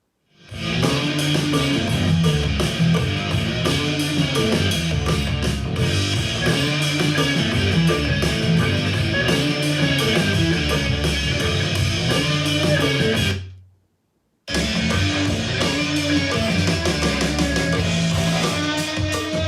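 Guitar-driven rock music with electric guitar and bass, played back through a portable Bluetooth speaker as a sound test. It starts about half a second in, cuts out for about a second about two-thirds of the way through, then carries on.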